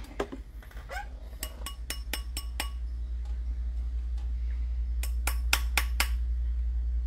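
Two quick runs of light, ringing metallic clinks, about five a second: an annealed metal ring blank knocking against a steel ring mandrel as it is bent around it by hand. A steady low hum runs underneath.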